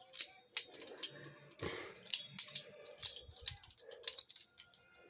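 Viper Tech balisong (butterfly knife) being flipped: its handles swing and knock against the blade and zen pins in an irregular run of sharp clicks and rattles. The pivots are freshly lubed and the zen pins loosened.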